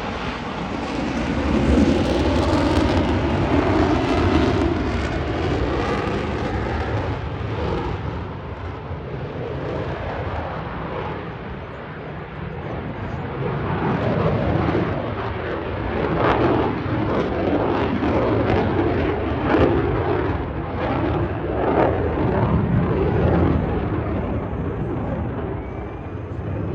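F-35 fighter jet's single afterburning turbofan passing overhead: a loud, rushing jet noise that swells, eases off about halfway through, then builds again.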